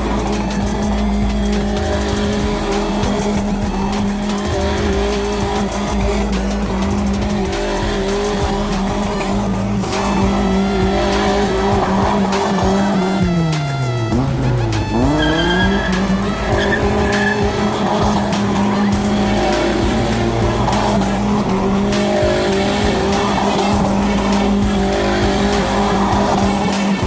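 A sedan doing donuts: its engine is held at high, steady revs while the tyres spin and squeal on the asphalt. About halfway through, the revs drop sharply and climb straight back to the same steady pitch.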